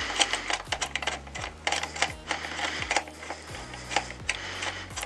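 Quick irregular metallic clicks and ticks from a hand rivet nut tool setting a threaded insert in an aluminium bike frame, over background music.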